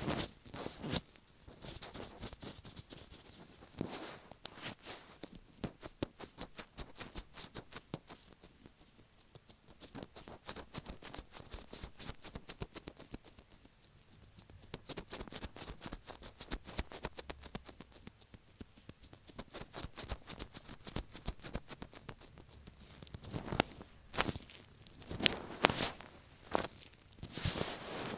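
Latex-gloved fingertips tapping and rubbing directly on an earphone microphone, making a rapid run of sticky, crackling close-up taps. The taps come thick and fast near the start and again in the last few seconds, and are lighter in between.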